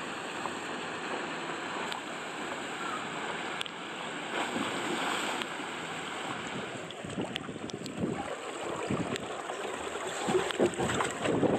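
Water rushing down an open body slide and splashing into the pool, a steady wash of noise. About seven seconds in it gives way to water running into the slide's start trough, with wind on the microphone and a few knocks near the end.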